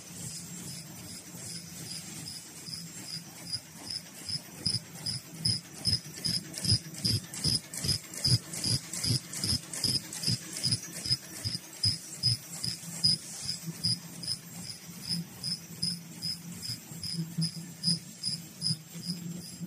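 Automatic KF94 mask production machine running at speed: a regular rhythm of short, crisp high-pitched ticks, roughly three a second, over a steady low hum, with soft thumps at the same pace.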